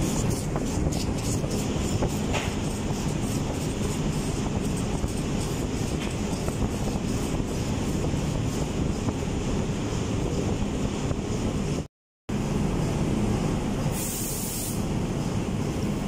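Steady, loud machinery drone of a ship's engine room, with faint rapid scraping of emery being rubbed by hand around a gear pump's oil seal bore in the first few seconds. The sound cuts out completely for a moment about twelve seconds in, and a short high hiss follows about two seconds later.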